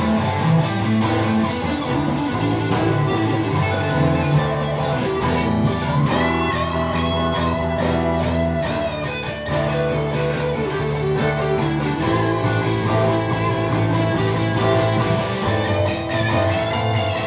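Live rock band playing an instrumental passage: an electric guitar lead with bending notes over strummed acoustic guitar, bass and drums, with even, repeated cymbal or tambourine strokes.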